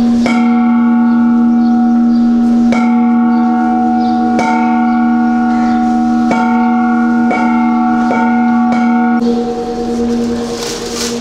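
Metal bells struck about eight times at uneven intervals, each strike ringing on over a steady low ringing tone; the set of tones changes about nine seconds in.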